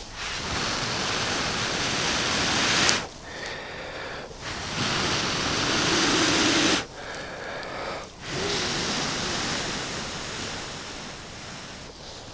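A person blowing into a grass tinder nest to coax a rope-lighter ember into flame: three long, steady blows of a few seconds each, with short breaks between them to breathe in.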